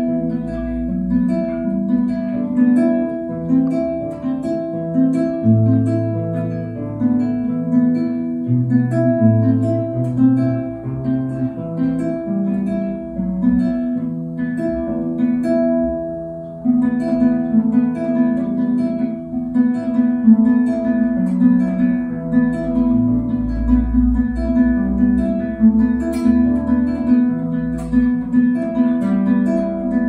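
Solo classical guitar played fingerstyle: a steadily repeated plucked note runs under a moving melody and bass line, with a short break in the playing about 16 seconds in before it picks up again.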